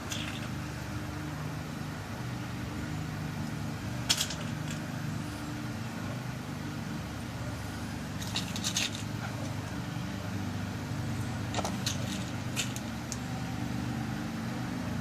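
Small sharp metallic clicks as tiny lock pins are dropped one by one into a pin-tumbler lock cylinder to set a new key code: one click about four seconds in, a few close together around the middle, and several more later, over a steady low hum.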